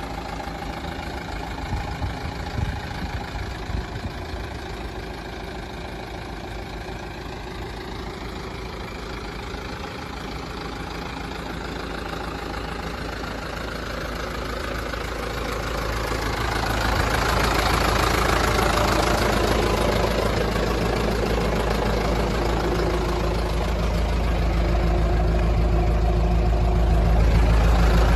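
Mitsubishi Canter's 4D34 four-cylinder diesel engine idling steadily. It grows noticeably louder and rougher about halfway through, heard close from beneath the truck.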